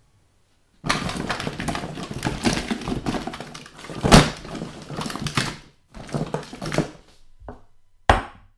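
Clattering and knocking of objects being rummaged through and shoved about, a dense run of rattles with one loud knock about four seconds in, then a few separate thuds.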